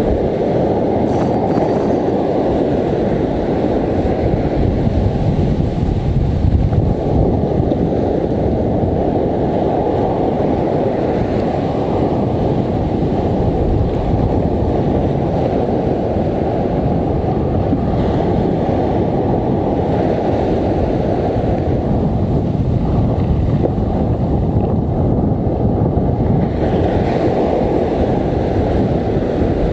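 Heavy surf washing up a beach, mixed with strong wind rumbling on the microphone: a loud, steady rush with no break.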